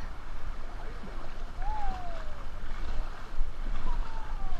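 Water sloshing and lapping around an inflatable tube drifting on a lazy river, with wind rumbling on the action camera's microphone. Two faint falling calls can be heard in the background.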